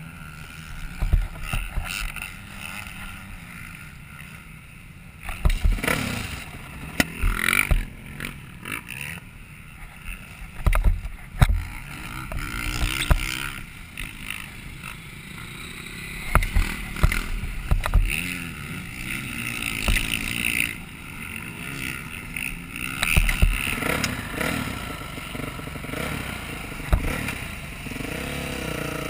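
Dirt bike engine heard from a helmet-mounted camera while riding, its pitch rising and falling with the throttle, with frequent knocks and thumps over the bumpy track.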